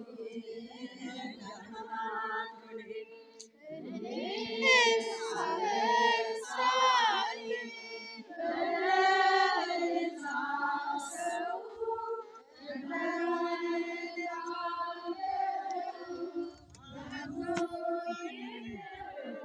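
A group of voices singing a chant-like hymn together, women's voices prominent, the melody wavering and bending in long ornamented lines.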